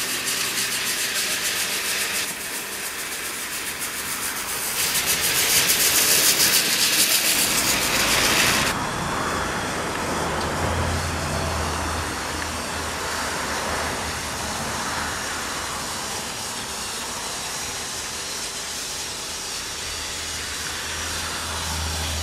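Battery-powered Tomy Trackmaster toy trains running on plastic track, their small electric motors and gears whirring steadily. The whirr grows louder and then changes abruptly about a third of the way in, becoming a quieter whirr with a low hum that swells as a locomotive comes close.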